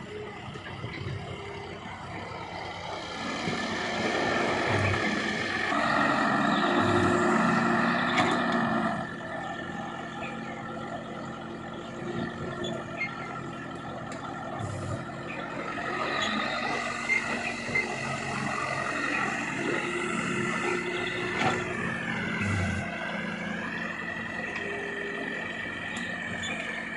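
Diesel engine and hydraulics of a Hitachi wheeled excavator working, with a steady engine note and whine. The sound swells louder for several seconds a couple of seconds in, and near the end the pitch dips briefly and recovers as the engine takes load.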